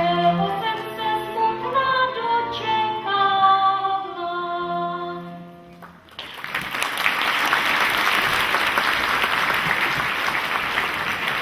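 Slow lullaby music with long held notes, ending about six seconds in, followed by an audience applauding.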